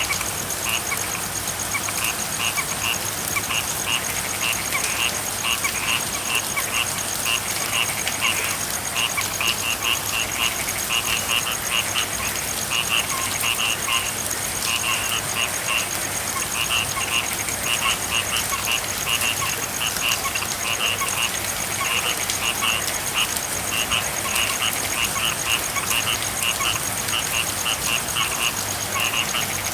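A chorus of frogs calling over steady rain, in short bursts of rapid pulses that repeat every second or so, with a thin steady high tone above.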